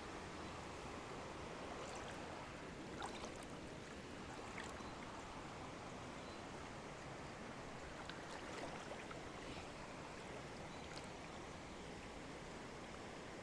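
River water flowing steadily, with a few faint clicks.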